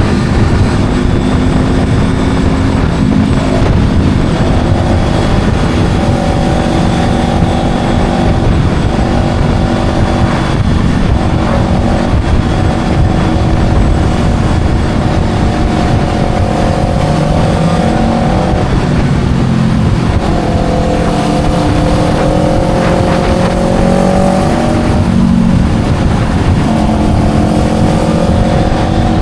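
Motorcycle engine running while riding, its pitch holding for a few seconds at a time and then shifting up or down as the revs change, over a heavy rumble of wind on the microphone.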